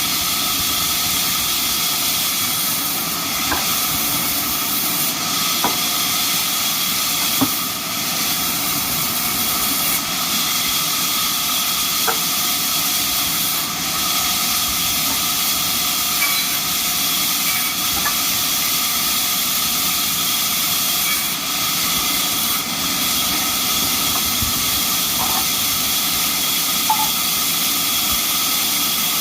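Band sawmill running: a steady high hiss with several constant whining tones through it, and a few small ticks now and then.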